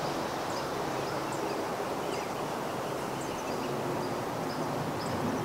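Outdoor ambience: a steady hiss of breeze through trees, with faint short bird chirps about once a second.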